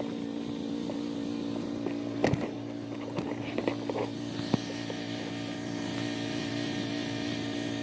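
An engine running steadily at a constant speed, a stack of fixed-pitch hum lines, with a few light clicks and knocks about two to four seconds in.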